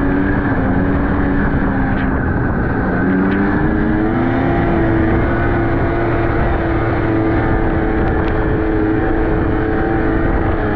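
Snowmobile engine running under way; its pitch drops a little about two seconds in, then rises and holds steady.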